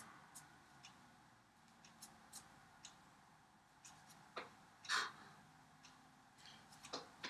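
Near silence in a small room, broken by faint scattered clicks and light brushing from hands meeting while signing. The loudest is one short rustle about five seconds in, as a fist is rubbed across an open palm.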